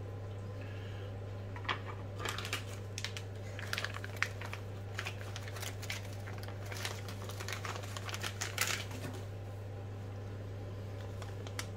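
Clear plastic parts bag crinkling as it is handled, a run of short crackles and rustles from about two seconds in until about nine seconds in. A steady low hum runs underneath.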